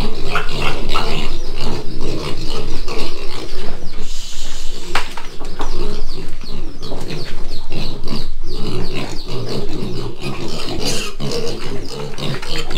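A litter of black piglets grunting, many at once and without a break, crowding for food at feeding time.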